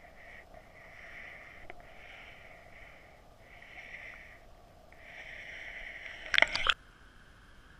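Stream water heard underwater through a GoPro's waterproof housing: a muffled, wavering hiss that swells and fades in patches over a faint steady hum. Near the end comes a short, loud burst of clicking and knocking, after which the sound drops suddenly.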